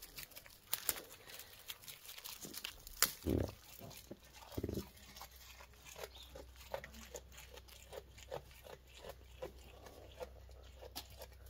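A goat chewing and tearing at the leaves and twigs of a leafy branch: crisp crunching bites, about two to three a second. A couple of dull thumps come a few seconds in.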